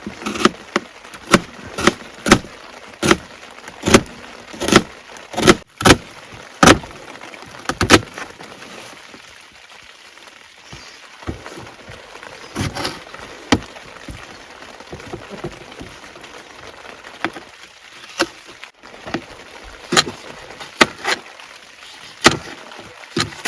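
Knife chopping an onion on a cutting board: sharp knocks about every two-thirds of a second for the first eight seconds, then a pause and scattered single chops. Rain makes a steady faint hiss underneath.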